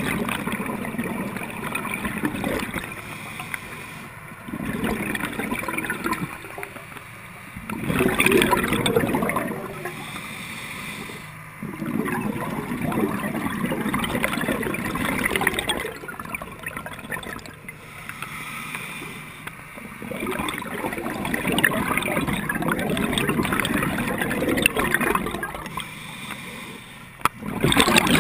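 Scuba diver breathing through a regulator underwater: gurgling bursts of exhaled bubbles a few seconds long, with quieter gaps for the inhales between them.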